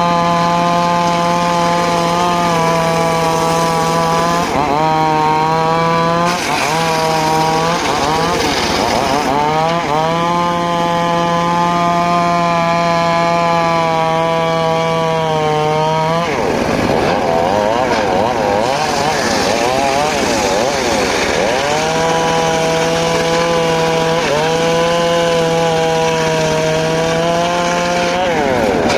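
Home-built circular saw cutting mahogany: a steady, high blade whine that drops in pitch each time the blade takes the wood. About two-thirds of the way through it turns rough and wavering for several seconds under a heavier cut, then settles back to the steady whine.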